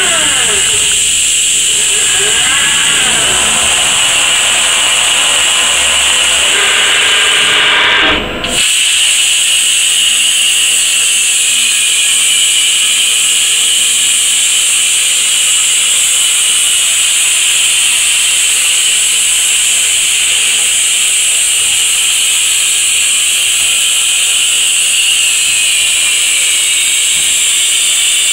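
Robotic plasma torch cutting a metal pipe: a loud, steady high-pitched hiss. For about the first eight seconds, motor whines rise and fall in pitch as the machine moves. A short sharp break comes about eight seconds in, and the steady cutting hiss then carries on alone.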